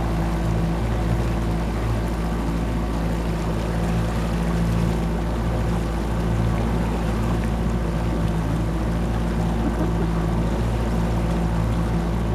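Tour boat's engine running steadily at cruising speed, heard from on board as a constant low drone of several tones, with water and wind rushing underneath.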